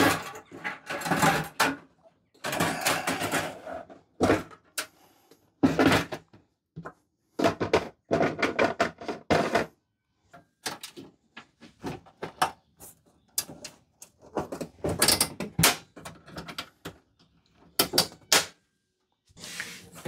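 Irregular knocks, clatter and rattles of the orange metal cover of a Vevor diesel air heater being handled, fitted and pressed into place, with short pauses between them.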